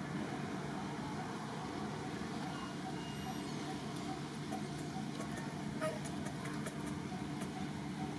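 Steady low engine hum, with a few faint clicks past the middle.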